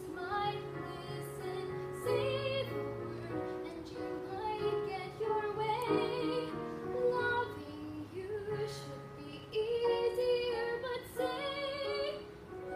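A girl singing a solo song over a recorded accompaniment with a low bass line, played through a small loudspeaker. Her singing stops shortly before the end.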